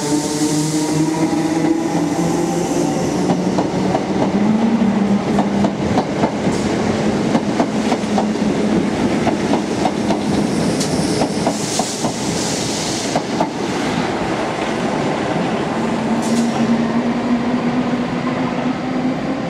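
A Thameslink electric multiple unit running along a station platform. Its motor whine drifts down in pitch over the first few seconds, then wheels click over the rail joints for several seconds. Near the end a steady motor hum comes in as another electric unit approaches.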